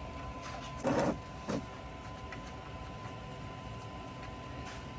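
Two short handling sounds about a second in, from the 17 mm socket and the oil drain plug being worked loose by hand, over a faint steady hum.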